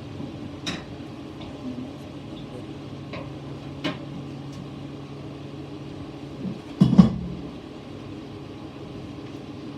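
A pan of sliced chicken, peppers and onions cooking on the stove under a steady low hum, with a few sharp clicks of a utensil against the pan and a louder clatter about seven seconds in.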